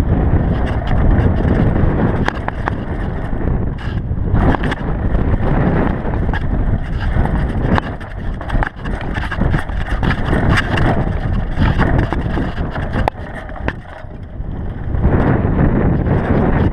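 GT DHi downhill mountain bike running fast down a rough dirt trail: steady wind noise on the microphone over tyres rolling on dirt and stones, with many short knocks and rattles from the bike over bumps. It eases briefly about two-thirds through, then picks up again.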